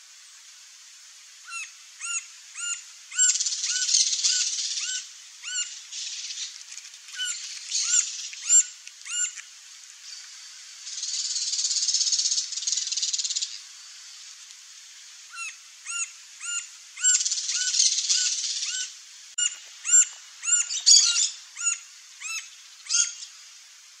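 Green-barred woodpecker calling: runs of short, clear, repeated notes, about two or three a second, broken by several bursts of high rasping noise lasting a second or two.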